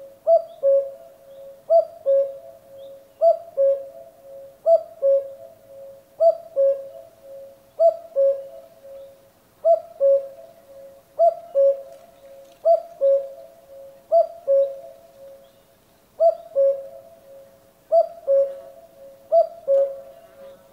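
Common cuckoo calling its two-note "cu-coo", a higher note falling to a lower one, repeated steadily about every one and a half seconds.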